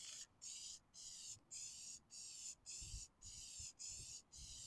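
Aerosol spray-paint can (Duplicolor trim and bumper paint) hissing faintly in short bursts of about half a second, one after another with brief breaks, as light passes of paint are laid on.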